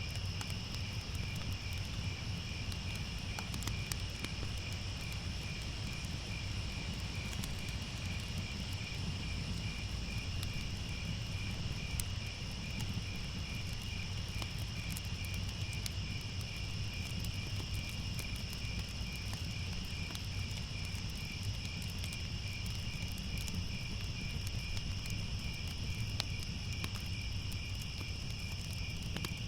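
Crickets chirping in a steady, fast, unbroken pulse at several pitches, over a low rumble with scattered faint crackles of a fire.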